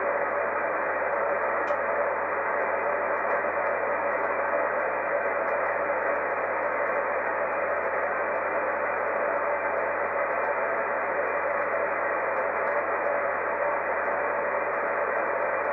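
Steady hiss of open-channel static from a software-defined radio receiver on the VHF aircraft band, with no transmission heard as it is tuned down from channel to channel. The hiss is narrow, with no treble above about 2.5 kHz.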